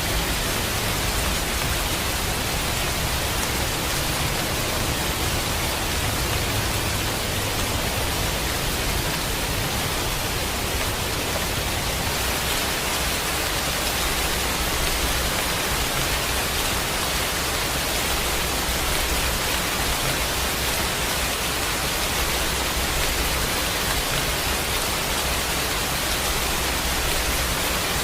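Steady heavy rain, an even hiss with no distinct drops, thunder or changes.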